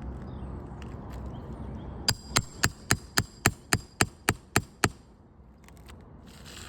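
Roofing hammer striking a steel nail-removal tool eleven times in quick succession, about four ringing metallic strikes a second, working a shingle nail loose. A short scrape follows near the end.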